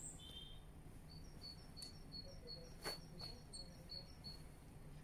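A series of short, high, evenly spaced chirps, about three a second, starting about a second in and stopping near the end, over a faint steady background. There are two soft knocks in the middle, the second the loudest sound.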